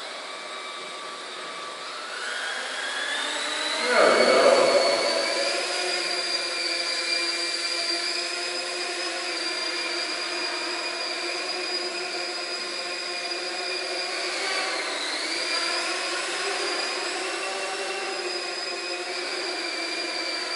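Small quadcopter drone's propellers whining, rising in pitch as it throttles up, loudest as it lifts off about four seconds in. The whine then holds a steady pitch in flight, dipping briefly and climbing back about fifteen seconds in.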